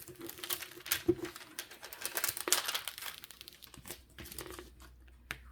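Clear plastic cover film being peeled back from a diamond-painting canvas's adhesive, crackling as it pulls away from the glue. The crackle shows the adhesive is fresh and sticky. It thins out after about four seconds.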